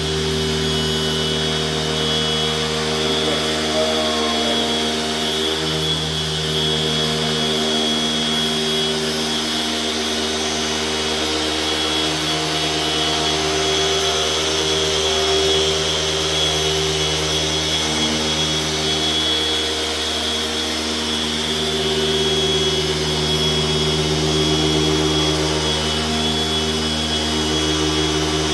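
Electric car polisher running steadily as it buffs heavy cut compound into a sanded headlight lens, during the compounding stage of a headlight restoration. Its hum rises and falls a little in pitch as the pad loads against the lens.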